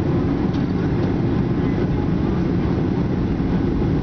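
Steady drone of engine and airflow inside the cabin of a Boeing 737-800, heard from a seat beside the wing and its CFM56-7B engine, as the jet descends on approach to land. The noise is a deep, even rumble.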